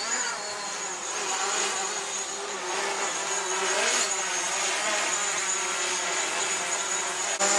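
Drone's propellers buzzing steadily, the pitch wavering slightly as it moves.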